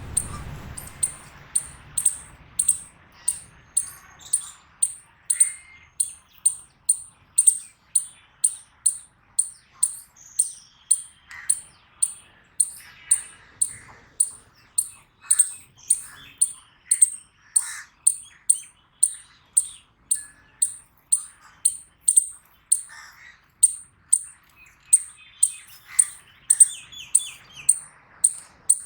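Eastern chipmunk giving its repeated high 'chip' call, a sharp note about twice a second in a steady, even rhythm, with fainter bird calls behind it.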